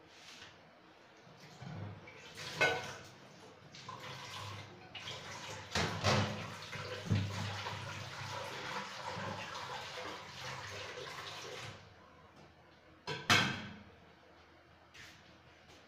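Water running for several seconds, then stopping suddenly, with a few sharp knocks and clatters around it.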